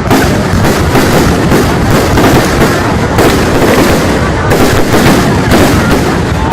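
Fireworks display: a loud, unbroken barrage of bangs and crackling, with several shell bursts every second.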